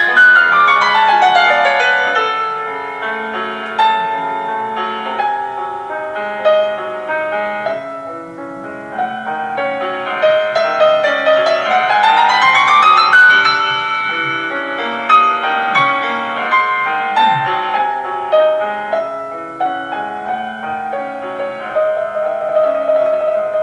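Solo piano playing a classical piece, opening with a fast descending run and sweeping up in a rising run about halfway through.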